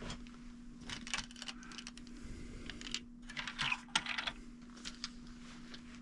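Irregular light clicks and crinkly rustling of packaging and small parts being handled, heaviest about a second in and again midway, over a steady low hum.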